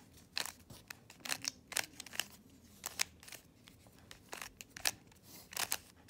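A 3x3 Rubik's cube being turned by hand through a sequence of face turns: an irregular string of sharp plastic clicks and clacks as the layers snap round.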